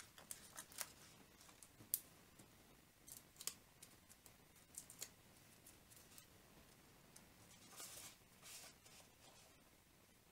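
Faint scattered clicks and crinkles of adhesive foam dimensionals being peeled from their backing sheet and small pieces of cardstock being handled, with a longer soft paper rustle near the end as a stamped circle is pressed onto a paper gift box.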